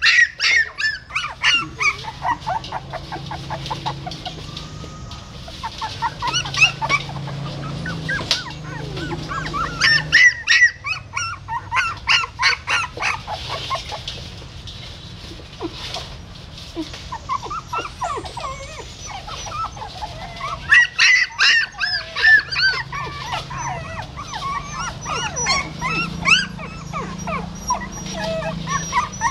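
Young puppies whimpering and squealing in quick, high-pitched cries that come in clusters, with short lulls between them.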